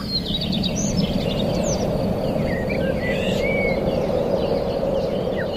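Several birds chirping and calling in short, varied notes over a steady low background rumble.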